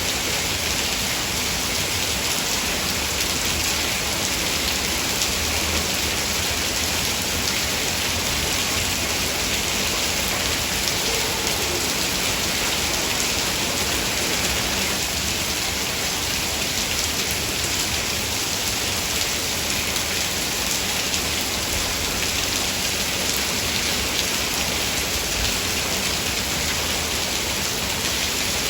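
Heavy rain falling steadily, a constant hiss of many drops on surfaces.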